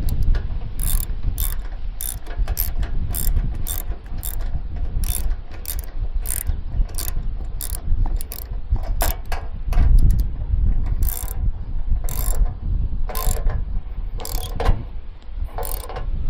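Socket ratchet wrench clicking in quick runs of back-swings, with a few longer rasping strokes later on, as the bolts holding the tiller's belt shield are run down.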